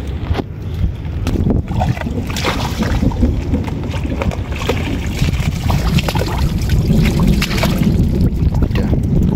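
Wind buffeting the microphone in a constant low rumble, with irregular splashing and sloshing of water over it.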